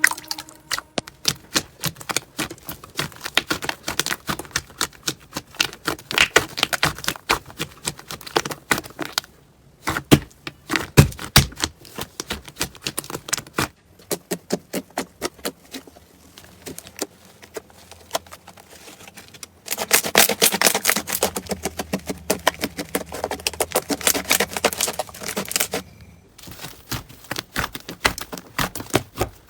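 Hands squishing and stretching slime, making rapid crackling clicks and small pops, in several short stretches that break off and start again.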